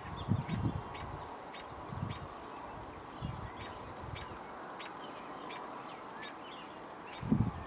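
Outdoor ambience: a steady high insect drone, with short chirps repeating about twice a second. A few low thumps come through, the loudest near the end.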